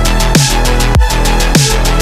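Electronic music with a heavy beat: a deep drum hit that falls in pitch about every 0.6 seconds over a held bass note, with fast ticking hi-hats.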